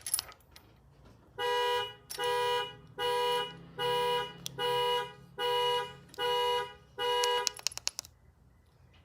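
Car horn pulsed by a panic alarm: eight evenly spaced honks, a little over one a second, from a two-note horn, starting about a second and a half in. A quick run of clicks follows the last honk.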